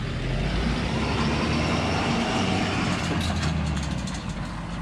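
Tire-service truck's engine running, a steady low drone that eases off near the end.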